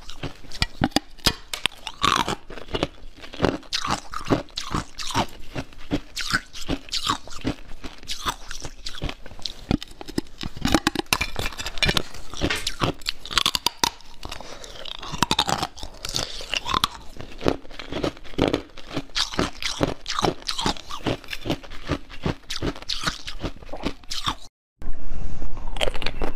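Close-up crunching and chewing of bites of a frozen jelly block, an irregular run of crisp cracks and crackles. Near the end the sound cuts out briefly, then louder chewing follows.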